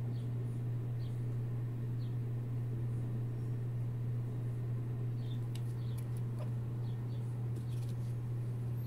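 Sphynx kitten chattering while watching out of a window: faint, short, high-pitched chirps about once a second, with a run of quick clicks in the second half. All of it sits over a steady low hum.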